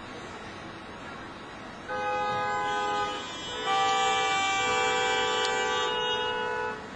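A vehicle horn sounding twice, over street noise: a blast of about a second, then after a short gap a longer one of about three seconds, each a steady chord of several tones.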